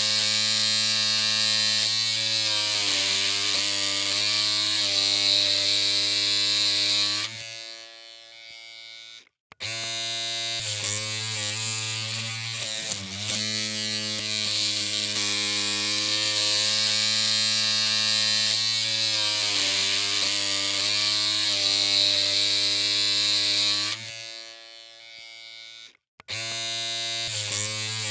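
Electric hair clippers running with a steady buzzing hum. The hum drops away twice, for about two seconds each time, and then starts again.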